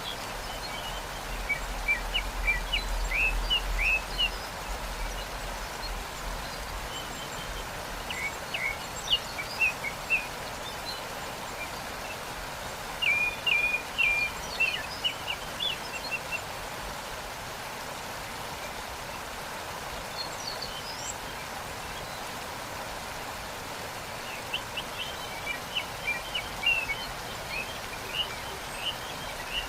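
Steady rushing water of a waterfall, with small birds chirping in several short bursts of quick high notes and a longer chirp-free stretch in the middle.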